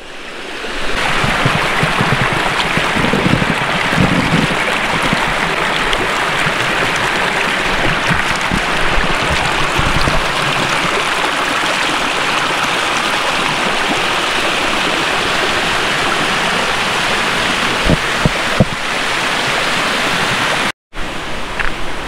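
Clear forest stream running steadily over rocks. The sound cuts out briefly near the end.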